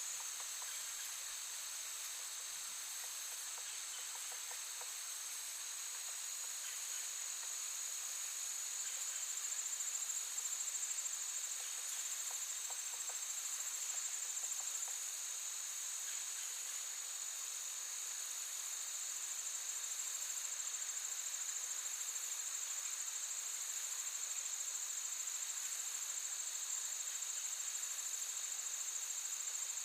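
Steady, high-pitched chorus of insects chirring in a forest, holding an unbroken shrill band of sound with a fainter lower band beneath it.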